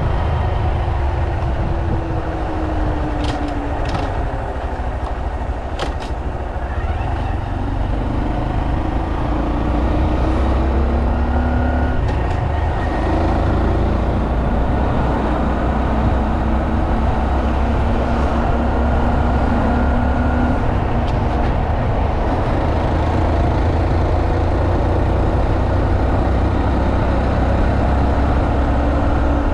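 Honda Monkey 125's single-cylinder four-stroke engine running while riding, its pitch rising and falling with the throttle, over a heavy steady low rumble.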